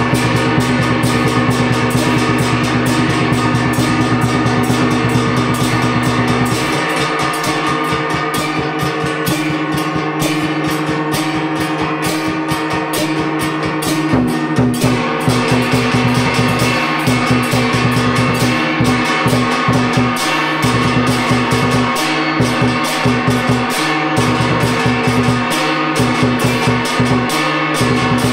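Vietnamese drum-and-gong ensemble (trống chiêng) playing: several large bossed gongs struck with mallets and a big barrel drum keep up a fast, steady beat over a ringing gong drone. About seven seconds in the deepest tone drops away, then comes back in stretches.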